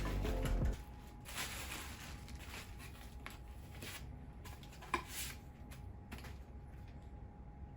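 Faint clicks, knocks and rustling as parts of a folding e-bike are handled during assembly, after a louder low sound in the first second.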